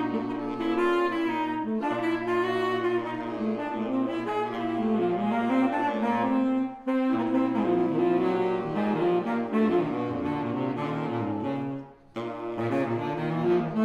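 Saxophone quartet of soprano, alto, tenor and baritone saxophones playing held, overlapping notes in close harmony over a low sustained tone. The sound breaks off briefly about seven seconds in and again, more fully, near the end before the players come back in.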